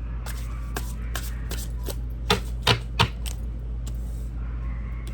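Tarot cards being handled: a run of light clicks and taps of card stock, with three louder taps on the table about two to three seconds in.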